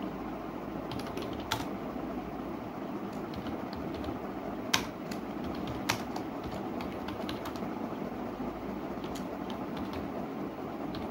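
Typing on a computer keyboard: scattered, uneven key clicks with a few louder keystrokes about a second and a half, five and six seconds in, over a steady low background hum.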